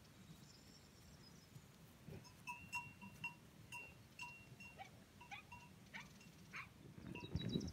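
Faint clinking of a small bell, a quick run of ringing notes about two seconds in, followed by soft knocks and rustles on the grass while a young cow grazes and walks past. A brief low rumble comes near the end.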